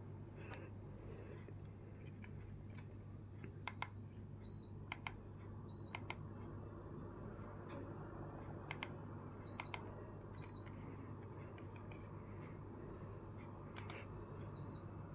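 Gree split air conditioner running with a steady low hum. Five short, high single beeps are scattered over it, along with several sharp clicks.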